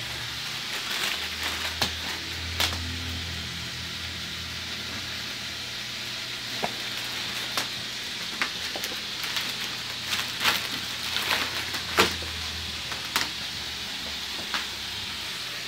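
Fish fillets frying in butter in a hot pan: a steady sizzle with many sharp crackles and clicks scattered through it. A low hum sits under it for most of the time.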